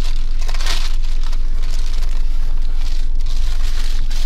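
Steady low rumble inside a car cabin, with soft close rustling and crinkling, likely a paper food wrapper handled while eating.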